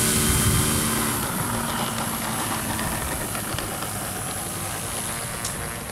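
Electric RC model plane's E-flite 40 motor spinning a 13x10 propeller, a steady whirring hum with a high hiss, fading as the plane taxis away.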